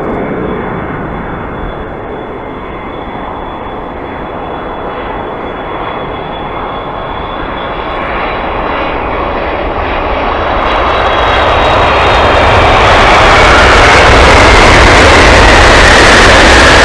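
Boeing 777-300ER's GE90 jet engines landing. The noise builds steadily and is loudest as the airliner touches down and rolls out, with an engine whine falling slowly in pitch near the end.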